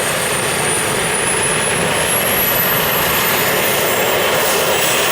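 Radio-controlled model jet's turbine engines running with a loud, steady rush and a thin, high whine that climbs steadily in pitch.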